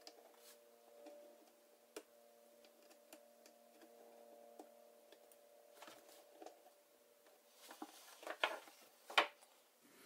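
Faint clicks and taps of fingers handling parts and pressing a connector into place inside an open laptop, with a few sharper, louder clicks near the end.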